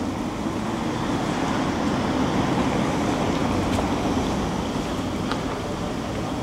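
Street traffic: a motor vehicle passes close by, its noise swelling around the middle and then easing off.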